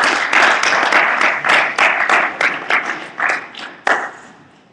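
Audience applauding at the end of a talk. The clapping thins out to a few last claps and fades away about four seconds in.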